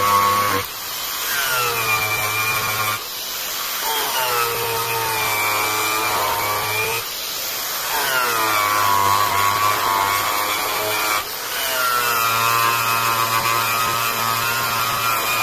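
Electric angle grinder working across the face of a wooden slab. Its motor whine sags in pitch each time the disc is pressed into the wood and recovers as the pressure eases, several times over.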